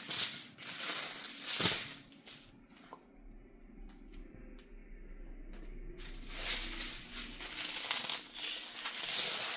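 Small plastic bags of diamond-painting drills crinkling as they are handled, with a sharp tap about one and a half seconds in and a quieter stretch in the middle.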